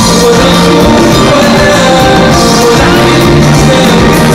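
Live band music played loud, with a male lead voice singing over a band and backing vocalists.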